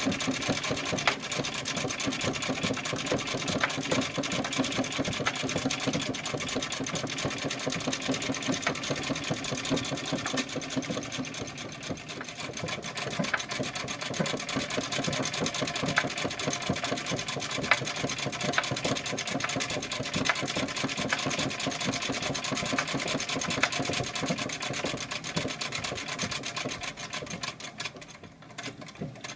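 1865 Florence sewing machine running steadily, its mechanism giving a fast, even rattle as it sews; the sound drops away near the end.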